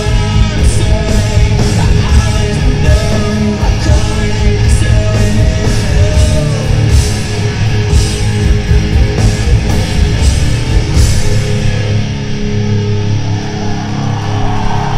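A live rock band playing loud, with distorted guitars, bass, and drums with crashing cymbals. About eleven seconds in, the cymbal hits stop and the guitars ring on.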